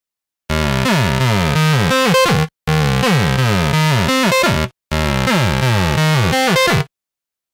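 FL Studio 3xOsc synth playing a saw-wave sequence with slide notes that glide between pitches, a squeaky, whiny 303-style line. The two-second pattern plays three times in a row with short breaks, then stops.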